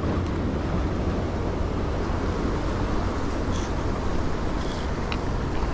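Steady rumble of sea surf on rocks mixed with wind buffeting the microphone, with a few faint clicks over it in the second half.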